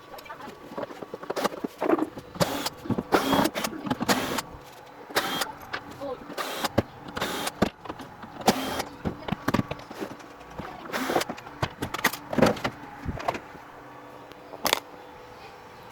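Irregular clicks, knocks and light clatter of hard objects being handled, one or two sharp knocks a second, the kind made while working on and opening up a CRT television's casing.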